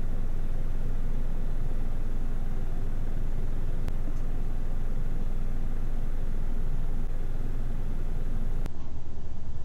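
Steady low rumble with a hiss and no turkey calls. There is a faint click about four seconds in and a sharper click near the end, where the hiss thins out.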